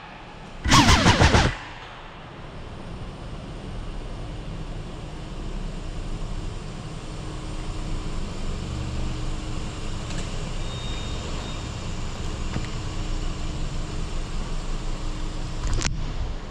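A car driving slowly through an underground car park: its engine and tyre rumble swell gradually and echo off the concrete. A brief loud burst about a second in, and a sharp knock near the end.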